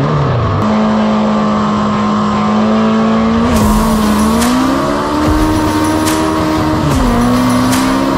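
Legends race car's Yamaha motorcycle-derived four-cylinder engine heard from inside the cockpit, revving up as the car pulls away, then running at steady high revs, rising again about five seconds in and dropping back near seven seconds. A few sharp knocks come in from about three and a half seconds on.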